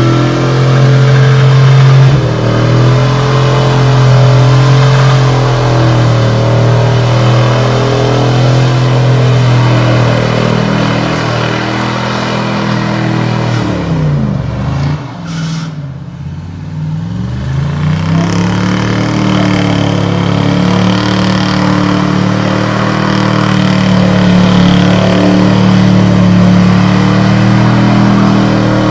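Square-body pickup truck's engine held at high revs in a long burnout, tires spinning. About halfway through, the revs fall away and climb back up, then hold steady again at a slightly higher pitch.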